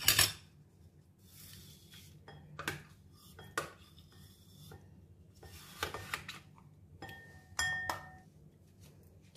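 Metal spoon scooping frozen custard ice cream out of a plastic box into a glass bowl. Irregular scrapes, knocks and clinks against the box and bowl, one clink ringing briefly about two thirds of the way in.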